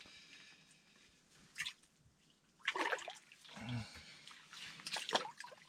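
Intermittent water splashes and drips from an ice-fishing hole as a hooked burbot is pulled up and out, with short handling rustles and knocks.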